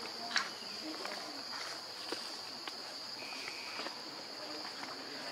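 Steady high-pitched insect drone, with scattered light clicks and rustles and one short high note about three seconds in.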